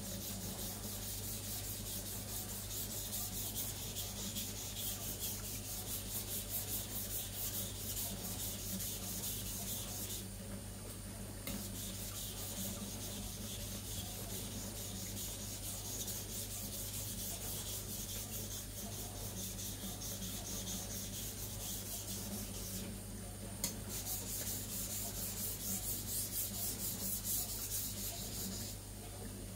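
Steel knife blade scraping back and forth on a wet Naniwa Aotoshi 2000-grit water stone, with steady rapid grinding strokes and short pauses about ten seconds in and again near twenty-three seconds. The bevel of a poorly ground Zwilling Five Star chef knife is being ground flat.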